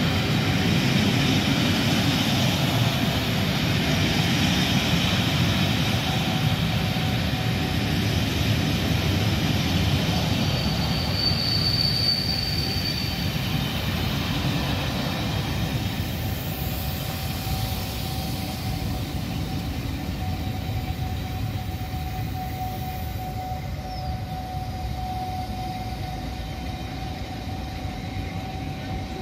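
Passenger coaches of a Class 47-hauled train rolling past along the platform, wheels running on the rails in a dense rumble, with a brief high wheel squeal about halfway through. The rumble slowly fades as the train draws away, with a faint steady tone in the second half.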